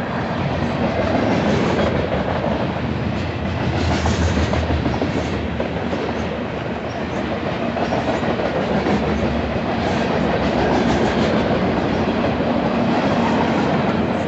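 Union Pacific freight cars rolling past, their steel wheels clattering over the rail joints in a steady, loud rumble.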